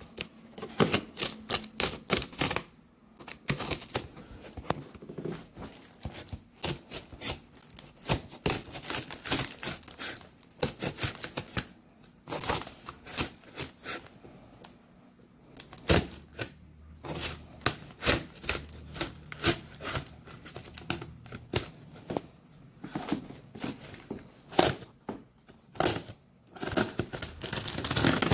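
Scissors cutting and scraping through packing tape along the seams of a cardboard box, with tape tearing and cardboard crackling: a quick, irregular run of sharp clicks and rasps, with a few short lulls.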